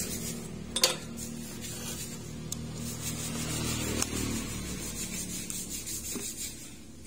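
Hands working thin wire leads with tweezers and side-cutter pliers: rubbing and scraping on the wires, with one sharp click about a second in and a few lighter ticks.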